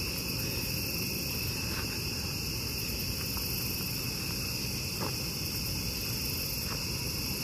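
Steady chorus of night insects: several high, unbroken pitches layered together, with a few faint footsteps on the dirt trail.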